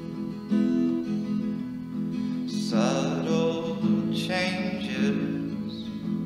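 Background music: acoustic guitar strumming chords, with a higher, bending melody line from about three seconds in until near the end.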